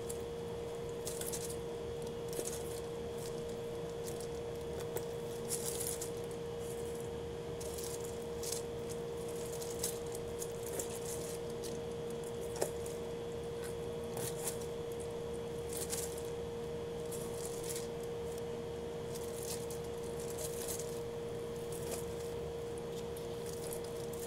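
Kitchen knife slicing octopus on a plastic-covered chopping board: soft, irregular cuts and scrapes with an occasional sharper tap, over a steady hum.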